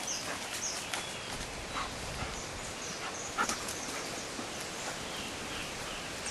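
German shepherd dog at play, leaping about and making a few short dog sounds, the clearest about three and a half seconds in.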